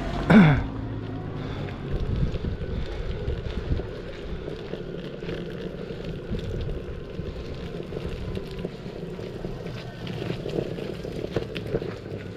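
Electric skateboard rolling along an asphalt road, a steady rumble of wheels and drive with scattered small knocks, and wind buffeting the microphone. A brief, loud downward-sliding sound comes at the very start.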